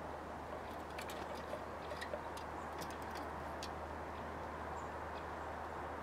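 Light, sharp ticks and taps of birds pecking and handling food at a feeder table, scattered through the first four seconds, over a steady outdoor hiss and low hum.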